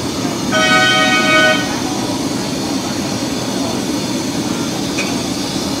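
Steady roar of the big gas burner flames under the karahi pans, with a vehicle horn sounding once for about a second near the start.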